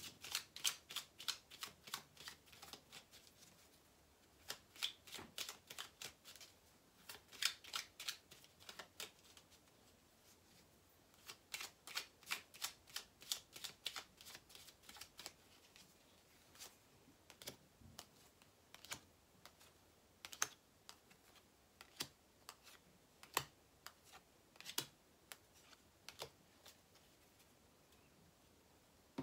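A deck of tarot cards being shuffled by hand: runs of quick flicking clicks as the cards slip off one another, in several bursts, then slower single clicks in the second half.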